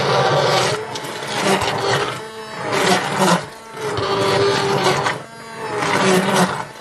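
Farberware immersion blender running in liquid in a slow-cooker crock, its motor whirring steadily and dropping in pitch and loudness three times before picking back up.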